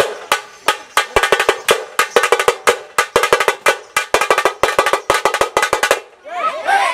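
Festival drumming: a large bass drum and a second drum struck rapidly with sticks, about five or six sharp beats a second in uneven clusters. The drumming stops about six seconds in, and a brief voice follows near the end.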